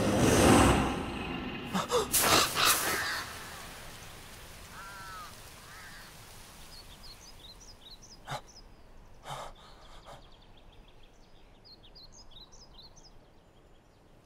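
A loud rushing sound dies away over the first few seconds, and a boy gasps sharply. A quiet outdoor ambience follows, with small birds chirping and a few short, heavy breaths as he comes to.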